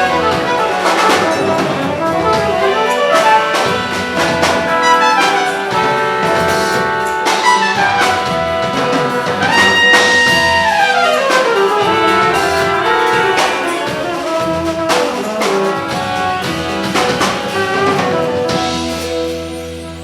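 Brass band playing a lively jazzy piece: trumpets, trombones and saxophones with percussion, horns sweeping down in runs around the middle. The music fades out near the end.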